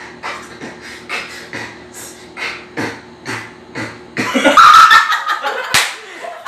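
A rhythmic beat of short strokes, about two a second, over a steady hum. About four seconds in, it gives way to loud voices and laughter with squealing.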